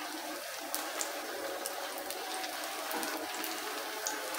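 Potato seekh kababs shallow-frying in a little hot oil in a frying pan: a steady sizzle with occasional small crackles.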